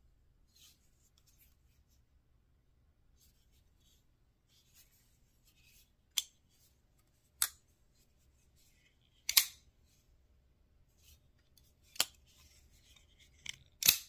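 Kizer Towser K liner-lock folding knife being opened and closed by hand: a few sharp metallic clicks as the blade snaps open into lock and shuts again, with faint sliding and rubbing between them. The clicks come in the second half, about five in all, the loudest two near the middle and at the very end.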